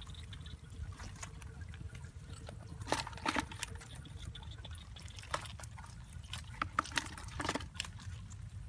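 Water trickling and splashing, with a few sharper splashes or knocks scattered through it.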